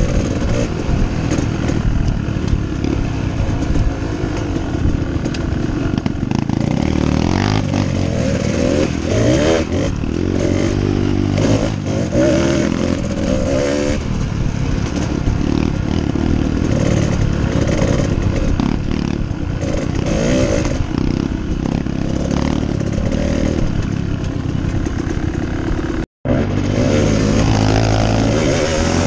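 Kawasaki KDX two-stroke dirt bike engine heard from on board, running and revving up and down with the throttle, its pitch rising and falling. The sound drops out for a split second near the end.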